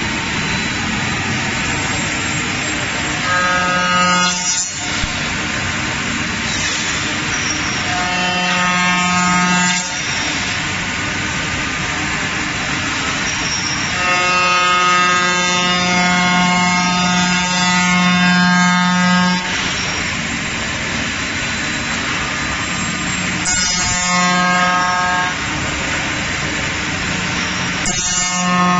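Five-axis CNC wood router running over a steady rushing noise, with a loud droning hum of the cutter working solid wood coming in five stretches, the longest about five seconds midway.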